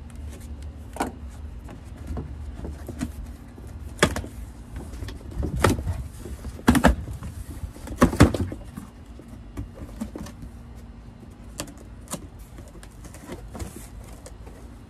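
A long cardboard shipping box being opened by hand: its flaps are pulled up and folded back with irregular scraping, crackling and tearing of cardboard. The sharpest, loudest crackles come in a cluster between about four and eight seconds in. Wind rumbles low on the microphone.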